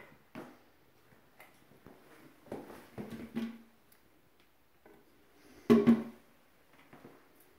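Scattered soft knocks and clicks of footsteps and handling in a small tiled bathroom, with a sharper double thump about two seconds before the end.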